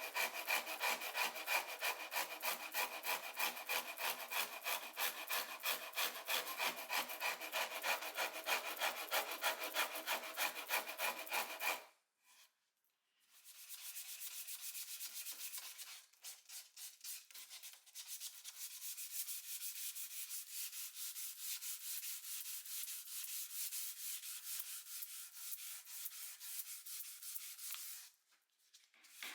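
Quick, even back-and-forth strokes of a hand tool abrading wood, as in hand-sanding or rasping a guitar part. The strokes run steadily for about twelve seconds, stop briefly, then go on more softly with a short dip partway, and break off again just before the end.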